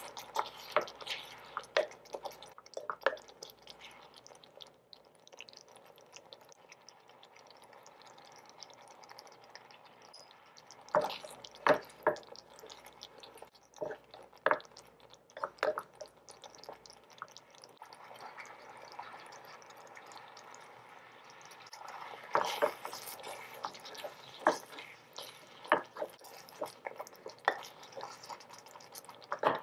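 A small wooden spatula stirring thick coconut-milk and shrimp-paste sauce in a miniature metal pan. Scattered sharp clicks and taps of wood on metal come in three bunches, over a soft wet sound of the thick sauce being worked.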